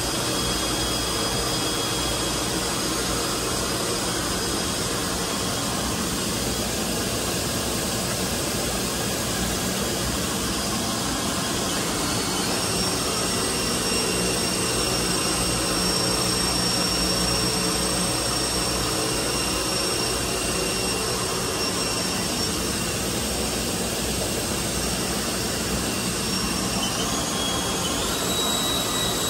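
Spindle of a 2000 Haas VF-4 vertical machining center running, a steady mechanical whir with a high whine that steps up in pitch about twelve seconds in and twice more near the end.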